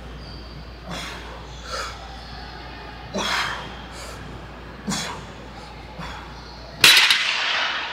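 A man's sharp, forceful breaths through the nose, one every second or two, as he works through barbell shrugs. Near the end a loud metallic clank, ringing on for about a second, as the loaded barbell is set down.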